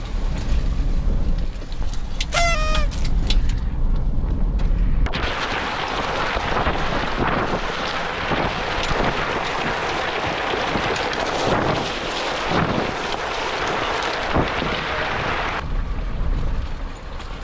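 2021 Ford Bronco crawling over a rocky trail: a low rumble at first, then from about five seconds in a loud, steady crunching of rock and gravel under the tires with scattered knocks, which eases off near the end.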